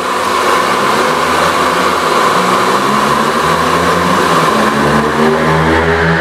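Handheld hair dryer running steadily, a loud even rush of air.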